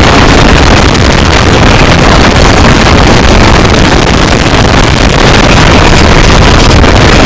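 A car's engine and wind noise heard inside the cabin as the car is driven at speed on a race track. The sound is steady and overloads the recording, so it comes out as a loud, distorted rush.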